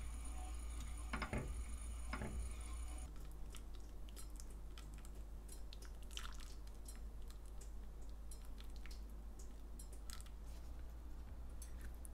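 Two brief soft sounds in the first few seconds, then a scatter of small irregular clicks and taps close to the microphone.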